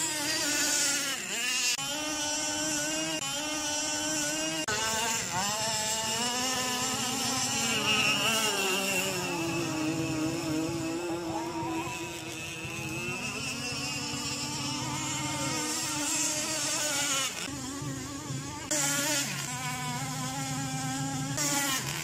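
Radio-controlled powerboat's motor running at speed, its pitch rising and falling repeatedly as the boat speeds up, slows and turns.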